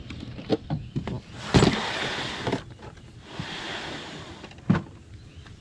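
Latch clicks and knocks as a truck camper's outside storage compartment door is opened, then a bang and two stretches of sliding noise as a slide-out storage tray is pulled out, with a sharp knock near the end.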